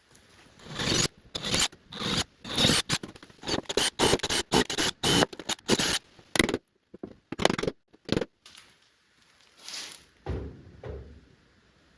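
Irregular scraping and rustling strokes, some sharp and brief, from the air hose reel's packaging and mounting hardware being handled; the strokes come thick for most of the stretch, then thin out to a couple near the end.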